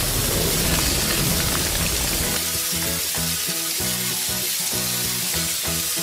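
Steady hissing spray of a water jet from a fire-truck ladder nozzle playing onto flames. Background music with a plucked, rhythmic line comes in about two seconds in, under the hiss.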